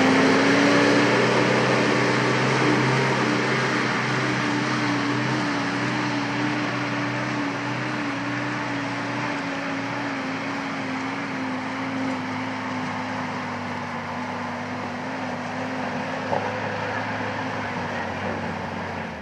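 Jeep engine running steadily under load as it climbs a steep, muddy trail, its hum slowly fading as it pulls away. A single knock sounds about sixteen seconds in.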